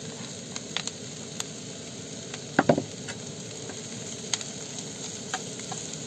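Chopped bolete mushrooms and onions sizzling in oil in a frying pan, with small clicks of stirring and a couple of louder knocks a little after halfway.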